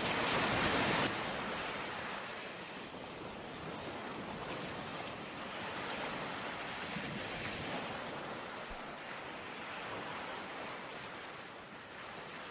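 Ocean surf: a steady rushing wash of breaking waves, loudest in the first second.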